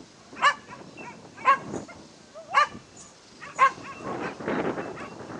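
A dog barking close to the microphone: four sharp, high barks about a second apart. A rushing noise comes in near the end.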